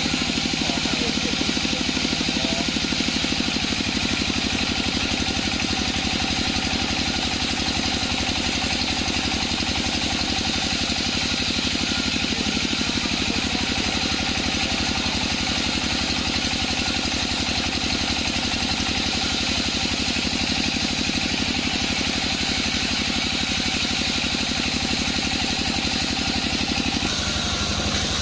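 Sawmill machinery running steadily, an engine-driven hum with a fast even pulse, shifting slightly in tone near the end.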